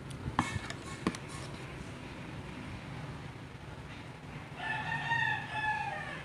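A rooster crowing: one drawn-out call lasting about a second and a half near the end. Before it, a few light clicks of a utensil against the steel mixing bowl.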